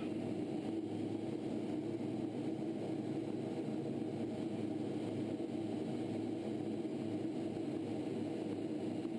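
Steady drone of jet engines and rushing air inside the cockpit of a T-38 chase plane in flight, with a constant low hum running through it.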